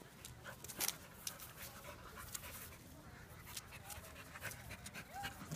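Dog panting while it noses among rocks, with faint scattered clicks.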